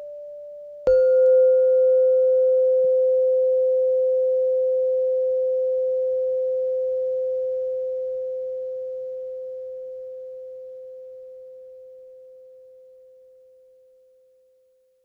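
A bell-like tone struck once about a second in, cutting off the fading ring of a slightly higher tone, then ringing out as one clear, nearly pure note that slowly dies away.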